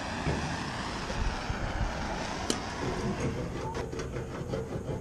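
Propane hand torch hissing steadily, then from about three and a half seconds in a hand scraper rasping in quick, even strokes, about six a second, over heat-softened paint on a steel tool box lid.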